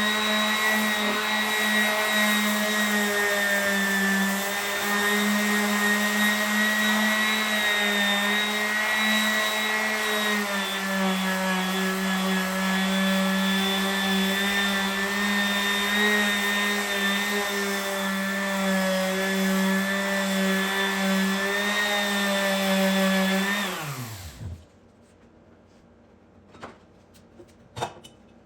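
Electric power sander running steadily on cherry wood, then switched off about four-fifths of the way through, its pitch falling as it winds down to a stop. A few light knocks follow.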